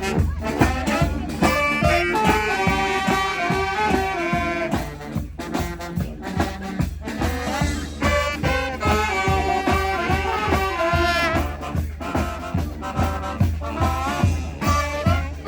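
Live street brass band playing an upbeat swing/ska-style instrumental: horns carrying the melody over a steady drum beat.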